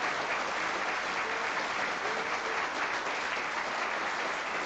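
Audience applauding steadily: dense, even clapping from a hall full of people.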